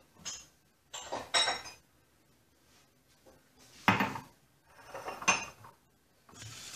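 Glass mug and plastic jug being set down and handled on a stone countertop: a handful of short clinks and knocks, the loudest about a second and a half in and about four seconds in.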